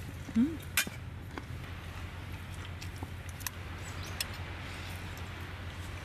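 Light clinks and taps of eating utensils against dishes, a few scattered strikes, over a steady low background hum. About half a second in there is a brief hummed voice sound, the loudest thing here.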